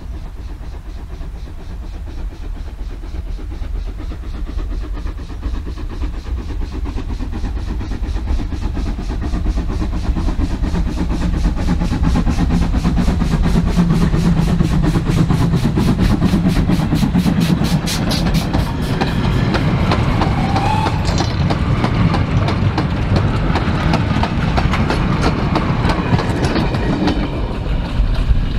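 Steam locomotive hauling a goods train past: its rhythmic exhaust beats grow louder and quicker as it approaches, peaking about halfway through. The beats then give way to the clatter of the goods wagons rolling by.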